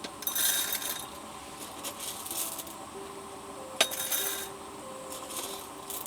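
Short crackling bursts and a sharp clink a little past the middle, with a few faint held tones behind them.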